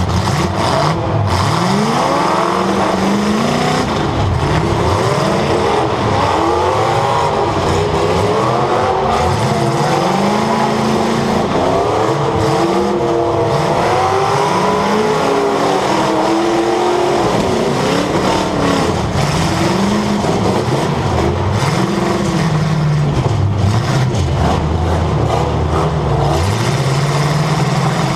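Demolition derby car engine, heard from on board, revving up and falling back over and over, with other derby cars' engines running and revving at the same time.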